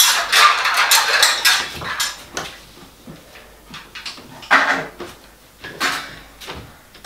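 Metal clattering and rattling, dense for about the first two seconds, then a few scattered single knocks.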